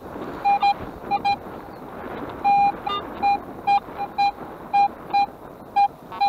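Metal detector giving a run of short, irregular beeps on one mid-pitched tone, with one longer beep about two and a half seconds in, as the coil is swept over a metal target in a freshly dug hole.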